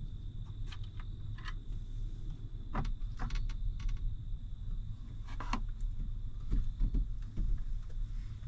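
Scattered plastic clicks, rattles and knocks as a combine's warning display panel is handled and its circuit board and wiring connectors are pulled free, with a cluster of louder knocks near the middle.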